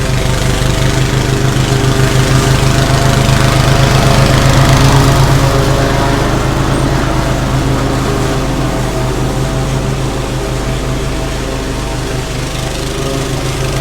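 Toro TimeMaster walk-behind lawn mower running steadily while cutting grass, its engine growing a little louder about four seconds in, then easing off slightly.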